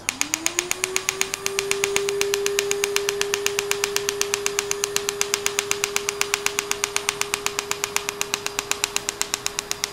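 Asclepion MCL31 Dermablate Er:YAG laser firing fractional pulses into facial skin in a rapid, even train of sharp little bangs, about eight a second. Each bang comes from the water in the skin being evaporated by the pulse. Under them is a steady hum that rises in pitch over the first second and then holds.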